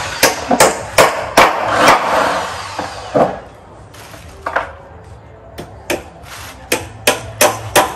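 Hammer driving nails into a wooden tabletop: a run of sharp strikes, a lull of about two seconds midway, then a quicker series of blows near the end.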